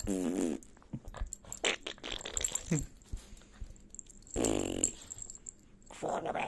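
Small dog growling in rough play: three short growls, at the start, about four and a half seconds in, and near the end, with clicks and rustling in between.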